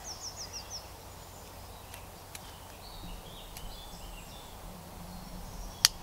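Small birds calling over steady outdoor background noise: a quick run of about six high, falling chirps at the start, then faint scattered calls and a few light clicks. Just before the end comes a sharp click, a Victorinox Camper pocket knife's blade snapping shut.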